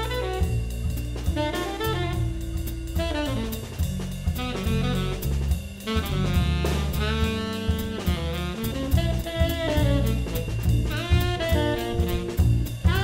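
Jazz quartet playing: tenor saxophone playing quick, moving melodic lines over drum kit with cymbals, electric bass and electric guitar.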